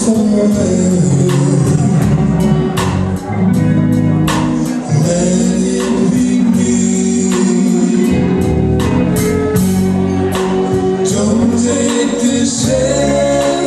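Live band playing a song with a male singer: electric guitar, bass guitar, drum kit and saxophone, with regular drum and cymbal hits.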